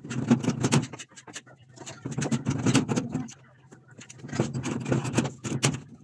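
Hammer tapping on a plywood panel in quick runs of strikes, with short pauses between the runs.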